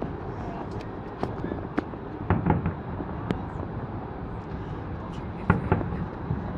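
Aerial fireworks going off: scattered sharp bangs and pops, the loudest about five and a half seconds in, over a steady rush of city and wind noise.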